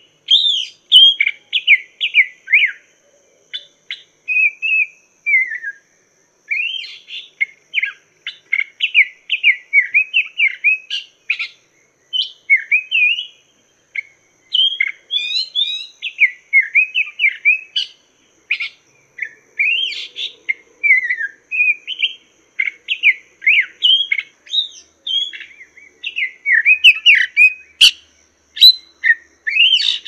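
Poksay mandarin, a laughingthrush, singing a long run of fast, varied whistled phrases with short pauses between bursts. There is a single sharp click about two seconds before the end.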